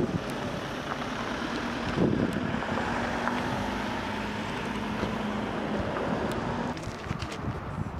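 A vehicle engine running steadily under rough wind noise on the microphone, with a knock about two seconds in; the engine hum stops abruptly near the end.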